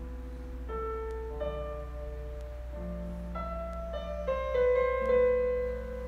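Solo classical piano music: a slow melody of held notes that swells louder a little past the middle.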